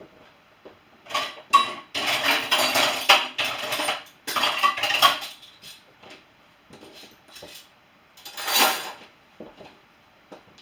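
Dishes and cutlery clattering as they are loaded into a dishwasher: runs of clinks and knocks from about a second in through the middle, a few light clicks, then one louder rattle near the end.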